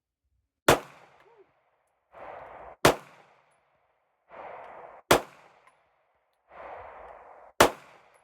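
Four single shots from a semi-automatic pistol, fired slowly about two and a half seconds apart, each a sharp crack with a short ringing tail. A brief rushing noise comes between the shots.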